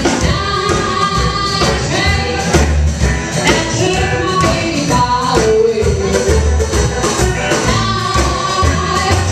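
Live small band playing: a woman sings long, bending notes into a microphone over upright bass and drums with a steady shaken percussion beat.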